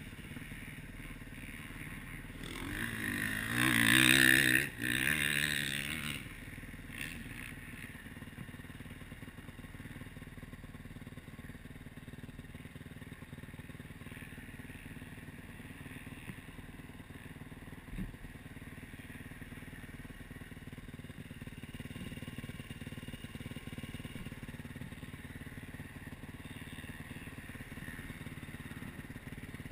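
Yamaha YZ450F single-cylinder four-stroke dirt bike engine running under way, heard from an on-board camera, with a loud swell of revving that rises and falls about three to six seconds in. A single short knock comes near the middle.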